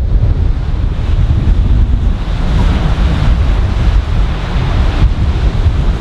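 Strong wind buffeting the microphone with a loud, rough low rumble, over waves breaking and washing up a sandy beach. A wave's hissing wash swells up about two seconds in and fades near the end.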